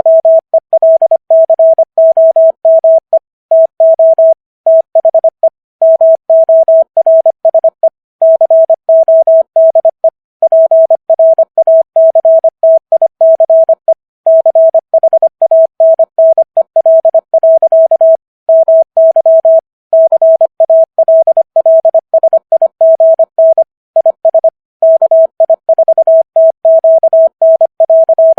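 Morse code sent at 25 words per minute as a single steady tone keyed on and off in dots and dashes, with short gaps between letters and longer ones between words. It spells out a plain-text welcome message.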